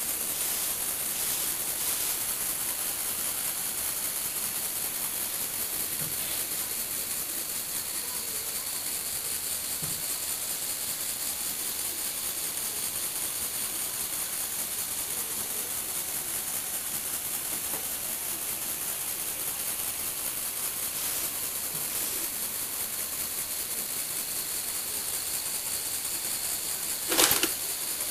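Lego Technic tracked vehicle running steadily on its electric motor, a constant mechanical whir from the motor, gears and plastic treads. A sharp clack sounds about a second before the end.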